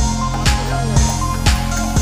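Electronic background music with a steady drum beat, about two beats a second.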